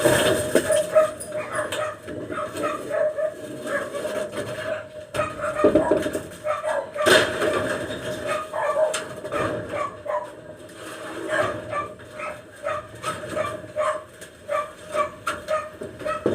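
A dog barking and yipping over and over, with a steady hum beneath and a few sharp knocks about five to seven seconds in.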